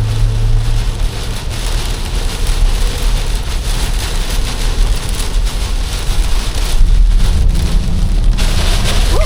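Heavy rain beating on a moving car, over a steady low rumble from the road.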